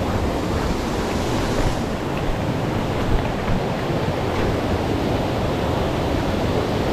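Fast-flowing river rapids rushing over rocks, a steady, loud wash of water.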